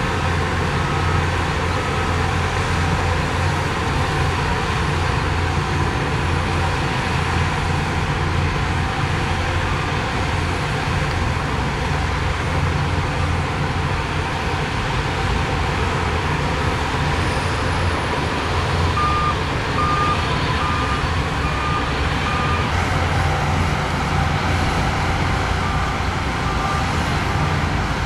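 Heavy diesel earthmoving machinery running steadily, with a reversing alarm beeping in several short runs. The clearest run comes about two-thirds of the way through.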